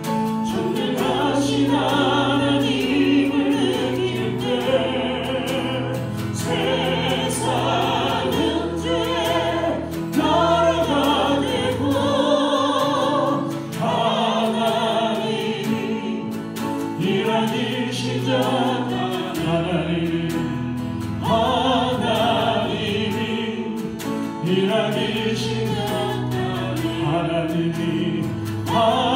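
Church choir singing a sacred song with instrumental accompaniment, in long-held notes with vibrato over sustained low bass notes.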